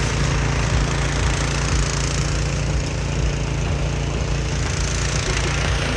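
Walk-behind gas snowblower running steadily under load, its engine making a low drone under a constant rushing noise as the auger and chute throw snow.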